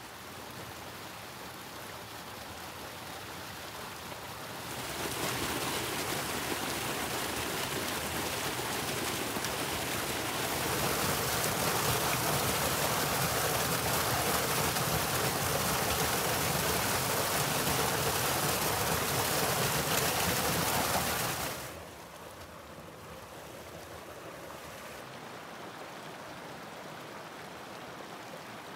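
Mountain stream rushing over rocks in a steady rush of water. The rush becomes much louder about five seconds in and drops back to its earlier level about three quarters of the way through.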